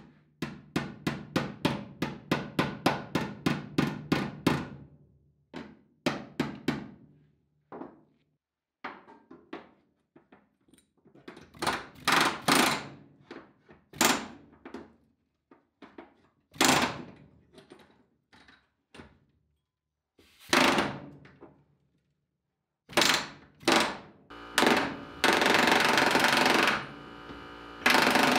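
Pneumatic air hammer pounding the relief-cut ridges of a steel pickup bed floor flat around a gas filler-cap opening. It starts as a quick string of blows, about four or five a second, then comes in short bursts, and near the end runs in one longer unbroken burst.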